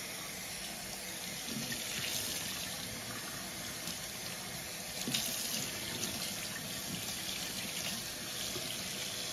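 Kitchen faucet running water through a paintbrush into a stainless steel sink while hands squeeze and work the bristles, rinsing latex stain out of them. A few brief louder splashes about five seconds in.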